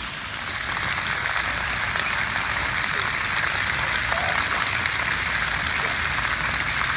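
Rows of splash-pad fountain jets arcing and splattering onto wet pavement, a steady rain-like spatter that grows louder about a second in.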